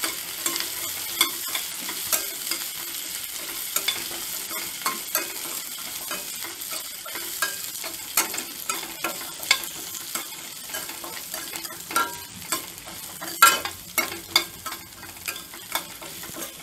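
Shallots, onion, garlic and green chilli sizzling as they sauté in hot oil in a stainless steel kadai, stirred with a steel ladle that scrapes and clinks against the pan many times, the loudest clink about thirteen seconds in.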